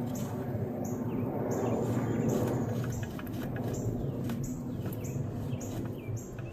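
A bird chirping over and over, about two short high chirps a second, some sliding down in pitch, over a steady low hum. A few light metallic clicks come from parts being handled.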